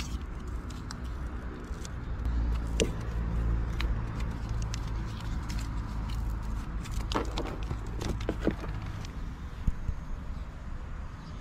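A vehicle engine hums low and steady, swelling about two seconds in and easing off near the end. Over it come scattered light clicks and rustling from hands fitting a mesh insect screen onto a car door frame.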